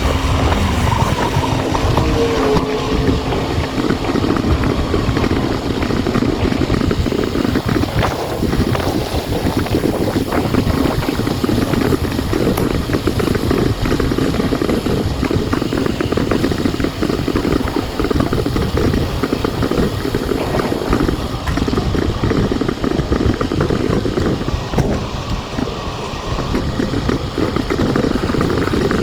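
Steady, rough rumble of a bicycle ride: wind buffeting the microphone and road noise from the rolling bike.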